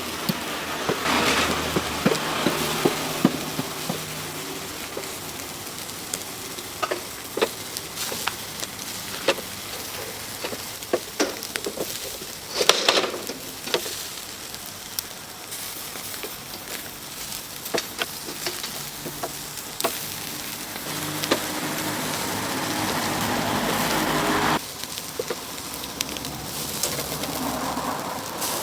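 Food sizzling in hot fat, with frequent sharp pops and crackles. It swells over a few seconds and drops off suddenly about 24 seconds in.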